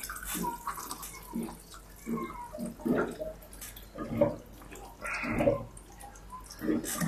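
Water running from a bottled-water dispenser's tap into a glass, heard as a string of separate short sounds about once a second.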